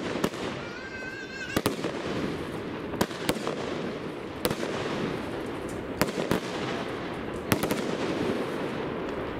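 Consumer firework battery (GAOO Diamond 3 cake) firing its shells: about nine sharp bangs, a second or so apart and some in quick pairs, as the shells burst overhead, over a continuous rushing crackle.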